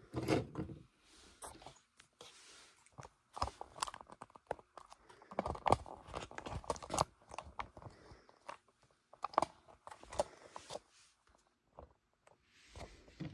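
Irregular plastic clicks, taps and rubbing from a transforming toy robot figure being handled and its parts moved, coming in scattered clusters with short pauses between them.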